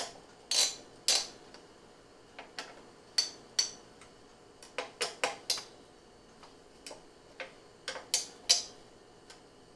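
Scattered sharp clicks and ticks, a dozen or so at uneven spacing, some in quick pairs, as the screws of an AMD Wraith Stealth stock CPU cooler are tightened down onto the motherboard's backplate.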